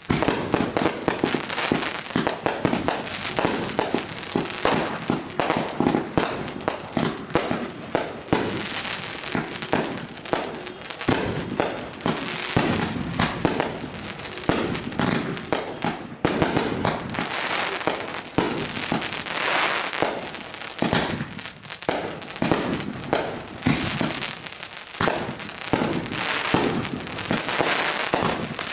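Consumer aerial fireworks going off, many sharp bangs and bursts following one another in quick succession with no let-up.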